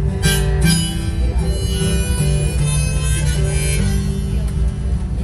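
Harmonica played in a neck rack over a strummed acoustic guitar, a live instrumental tune with the harmonica carrying the melody.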